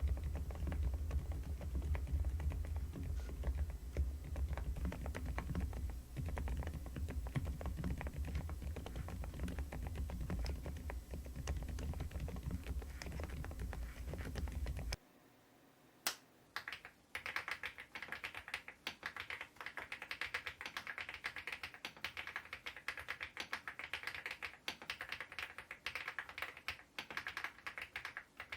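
Typing on a Preflow F1 PRO MAX full-size mechanical keyboard: a fast, continuous patter of keystrokes with a low hum underneath. About halfway through, the sound cuts out briefly, then the typing resumes, brighter and clickier, with no hum.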